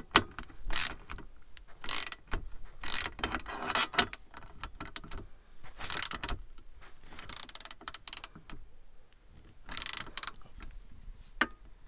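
Ratchet spanner clicking in short irregular bursts, about a dozen strokes, as a bolt holding an armrest to a seat frame is tightened.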